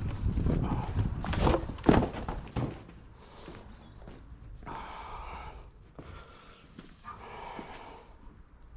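Knocks and clunks of a stainless steel roll cabinet being handled, the loudest two about a second and a half to two seconds in, followed by quieter sliding sounds like drawers or panels moving.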